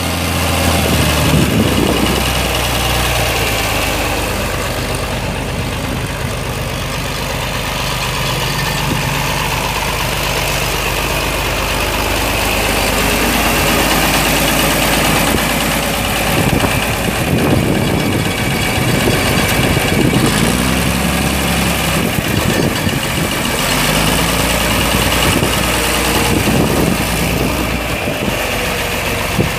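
John Deere 4020 tractor's 6.6-litre six-cylinder diesel engine running steadily near idle, its note shifting a few times.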